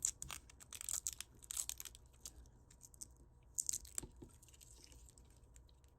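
Small plastic protective covers being pulled off the tips of a charging cable's connectors: crinkly, crackling plastic clicks in a cluster lasting about two seconds from the start, and another short cluster about four seconds in.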